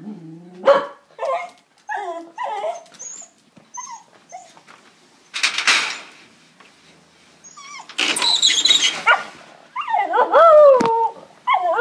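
Jack Russell–beagle cross dog barking and yelping excitedly in a quick run of short, high calls, then a few longer calls falling in pitch near the end. Two brief noisy rushes come in the middle.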